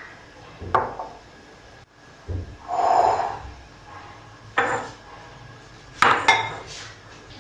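Ceramic dishes being set down on a marble countertop: a few knocks and a rubbing slide, then a plate clinking down twice with a short ring near the end.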